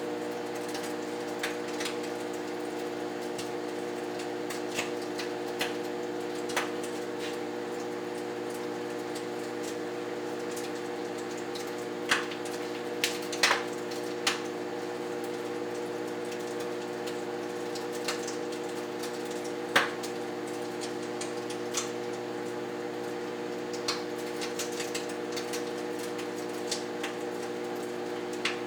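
Microwave oven running with a steady hum while bacon inside crackles and spits, with scattered sharp pops, a cluster of the loudest a little before the middle and one more about two-thirds through.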